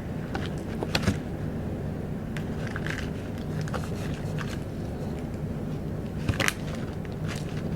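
Bánh tráng (Vietnamese rice paper snacks) being bitten and chewed close to the microphone: crisp crunches about a second in and again near the end, with softer crackling chews between, over a steady low hum.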